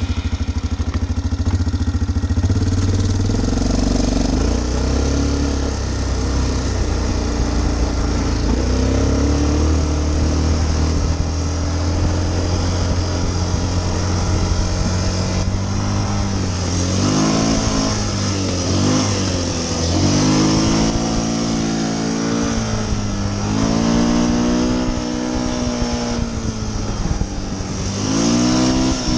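Yamaha Bruin 350 ATV's air-cooled single-cylinder four-stroke engine running under way, steady for the first half. From a little past the middle it rises and falls in pitch several times as the throttle is opened and eased off.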